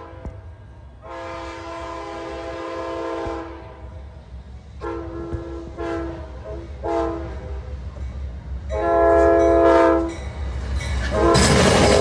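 Amtrak GE Genesis locomotive's air horn sounding a chord in a played series of blasts: a short one, a long one, two shorter ones and another long one. Near the end the train passes close with a loud rush of noise.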